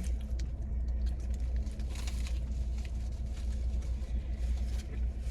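Steady low hum of a car engine idling, heard from inside the cabin, with scattered small clicks and rustles that are busiest about two seconds in.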